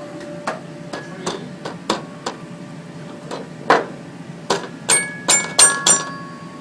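About a dozen sharp knocks and taps on something hard, spaced irregularly, ending with four loud ringing clinks about a third of a second apart.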